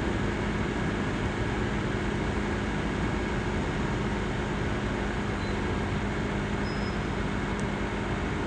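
Asus laptop CPU cooling fan running loud, a steady whooshing whir with a faint hum in it that does not change.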